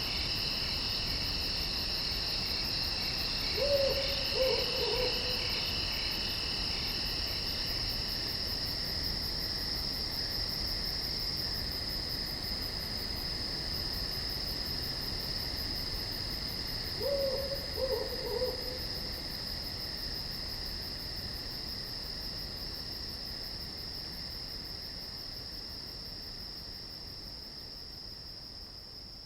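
Crickets chirring at night in a steady, high, continuous trill, with a second, lower trill that stops about nine seconds in. A low hooting call sounds twice over the chorus, about four and seventeen seconds in, each time a few short falling notes. The whole chorus slowly fades toward the end.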